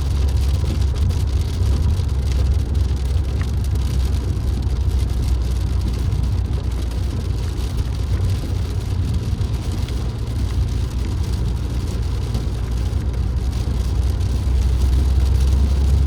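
Steady low rumble of a Peugeot 3008 being driven, heard from inside the cabin: engine and road noise.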